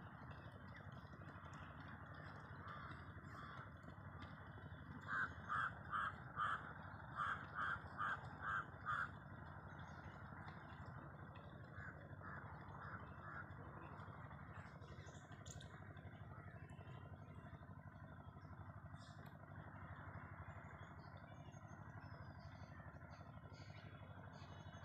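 Crow cawing: about nine short caws in quick succession, then three fainter ones a few seconds later, over faint steady background noise.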